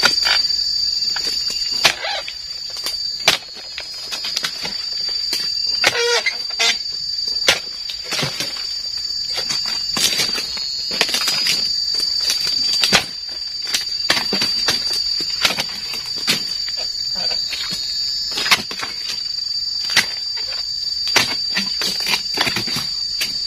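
A dodos, a chisel-bladed pruning pole, chopping into oil palm frond bases: sharp chops every second or two, with a steady high-pitched insect drone throughout.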